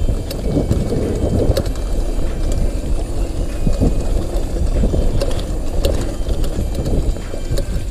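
Mountain bike rolling over a bumpy grassy dirt trail: a constant low rumble of wind buffeting the camera microphone, with scattered clicks and rattles from the bike over the bumps.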